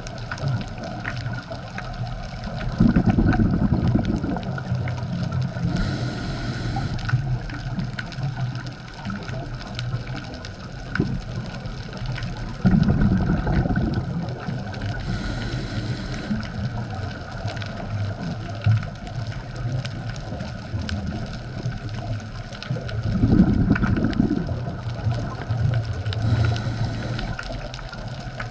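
Scuba diver breathing through a regulator underwater, three breaths about ten seconds apart: each exhale a low rumble of bubbles, each inhale a brief hiss.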